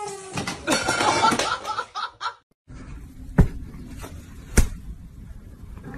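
A party blower's note ends just after the start, followed by a burst of laughter and commotion. After a cut, two sharp slaps sound over a quiet room hum, and a cat gives a short rising-and-falling meow at the very end.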